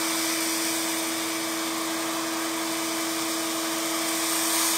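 Electric hair clippers running steadily while shaving a man's head.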